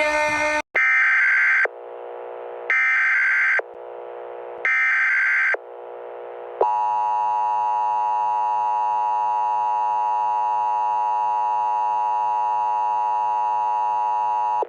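Emergency Alert System tones: three short buzzing bursts of SAME header data, about a second apart, then the steady two-tone EAS attention signal from about six and a half seconds in.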